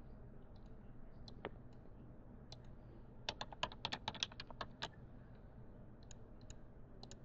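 Faint computer keyboard typing: scattered keystrokes, then a quick run of about ten keys a little past halfway, and a few more clicks near the end.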